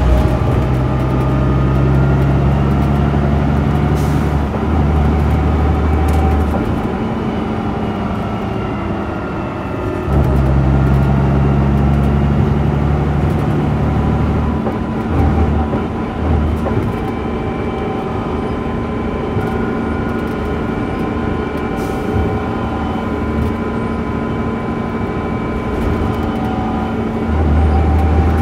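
Leyland Olympian double-decker bus with a Cummins LT10 diesel engine and ZF 4HP500 automatic gearbox, running through traffic: a heavy low engine drone under load for the first six seconds, easing off, pulling hard again from about ten to fourteen seconds in, and again near the end, with a thin higher whine over it.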